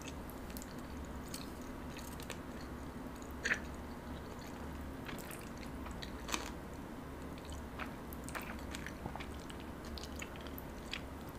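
Faint chewing and mouth sounds of jjajangmyeon noodles being eaten as quietly as possible, with scattered soft clicks and a slightly louder one twice, over a low steady hum.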